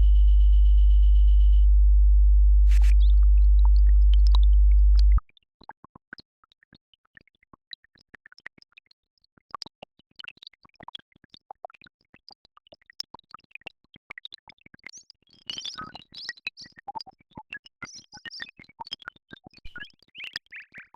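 Synthesized electronic sound: a loud, steady low drone with a high steady tone over it that stops under two seconds in. The drone cuts off suddenly about five seconds in, leaving quiet scattered clicks and short blips.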